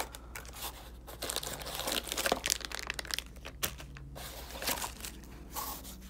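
Clear plastic bags holding oscillating multi-tool blades and sanding pads crinkling in irregular crackles as they are handled and laid down.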